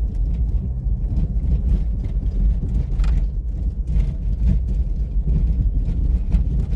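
Steady low rumble of a vehicle driving, with a few faint ticks and crunches over it.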